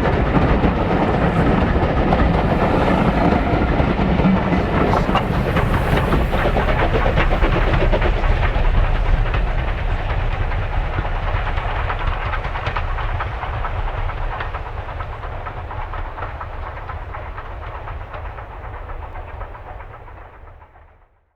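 A steam-hauled train running past, its wheels clattering on the rails. The sound holds for about nine seconds, then fades steadily as the train draws away, and cuts off near the end.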